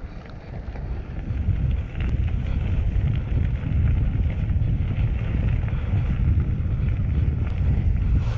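Wind rushing and buffeting on the microphone of a camera riding on a moving bicycle, with the tyres rolling over loose gravel. It grows louder over the first three seconds, holds steady, and cuts off abruptly at the end.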